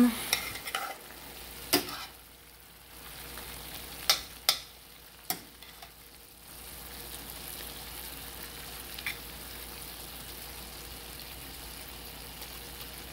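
A metal slotted spoon stirring cabbage, bacon and bell peppers in a stainless steel pan, knocking against the pan several sharp times in the first six seconds and once more later. Underneath, the cabbage sizzles steadily as it cooks down.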